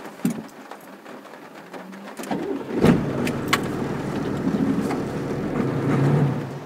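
MAN G90 truck's diesel engine cranked and catching about two and a half seconds in, with a sharp clack as it fires, then running steadily, heard from inside the cab.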